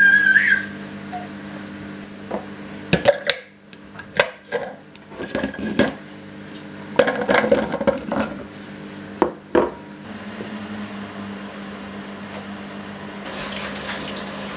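Hard plastic parts of a baby-food steamer-blender being fitted and handled: a string of sharp clacks and knocks as the blade, jar and lid go into place, over a steady low hum. A short high gliding call is heard right at the start, and a steady hiss begins near the end.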